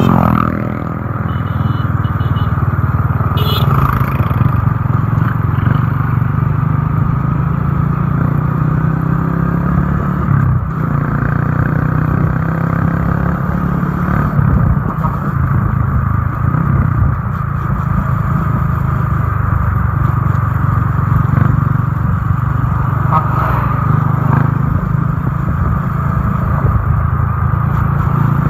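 Motorcycle engine running steadily at road speed, heard from the rider's own bike, with road and wind noise.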